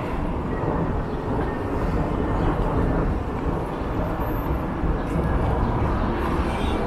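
Steady, low rumbling outdoor noise with no single clear source.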